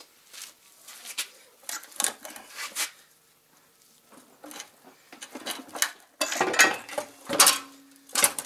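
Metal parts clinking, knocking and scraping as a transmission is worked loose and pulled off a stripped 4.6 V8 engine block. Scattered small knocks come first, then louder scraping and clanking about six seconds in.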